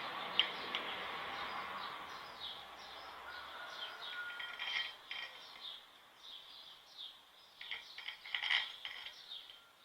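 Birds chirping repeatedly in the background, with a low hum that stops about a third of the way in and a short cluster of light clicks near the end.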